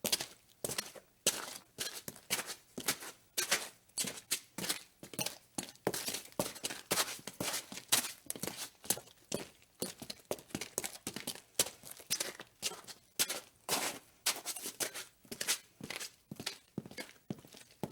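Footsteps walking at a steady pace, about two steps a second, each step a short, sharp scuff.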